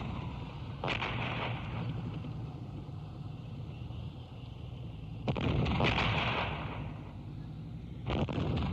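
Artillery fire as a battle sound effect: three sudden heavy blasts, about a second in, a little after five seconds and near the end, each fading over a second or so, over a steady low rumble.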